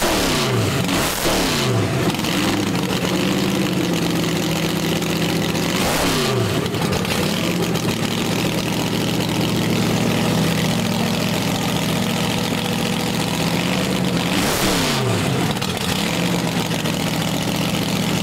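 Dodge dragster's engine warming up through open zoomie headers, idling loudly and unevenly. Sharp throttle blips rev it up and let it fall back, in a quick cluster near the start, once about six seconds in and again near the end.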